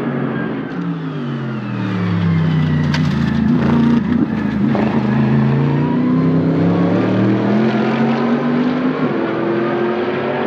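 Mercedes-AMG GT3 race car's naturally aspirated V8 engine. Its pitch falls over the first few seconds as it slows for a corner, with a few sharp cracks around the middle, then rises under acceleration, dropping once near the end at an upshift.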